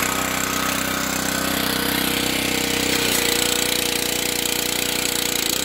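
Yamaha single-cylinder engine of a Powerstroke gas pressure washer running steadily; about three seconds in its note shifts.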